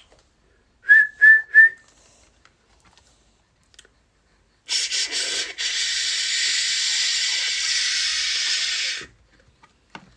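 Three short, high whistled peeps in quick succession, like a chick's cheep, followed a few seconds later by a steady hiss that lasts about four seconds and cuts off.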